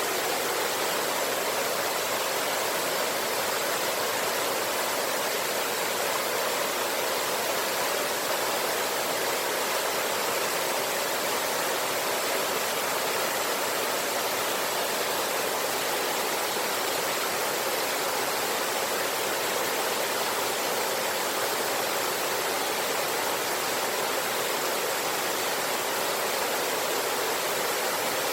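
Steady rushing of a river with a small waterfall, an even wash of water noise that doesn't change.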